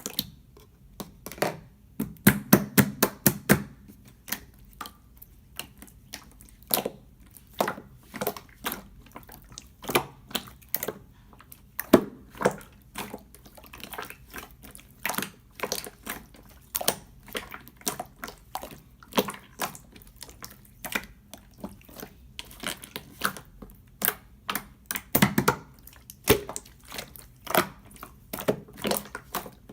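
Clear slime being pressed, stretched and squished by hand, giving off a dense, irregular run of sticky clicks and wet pops, with louder bursts of popping about two seconds in and again near the end.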